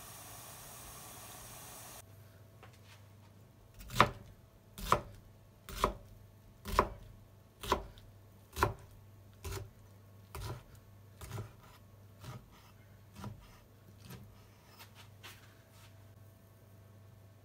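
Water boiling in a pot with a hiss. Then a kitchen knife chops boiled komatsuna on a cutting board, about one cut a second, the first six cuts sharp and loud and the later ones softer.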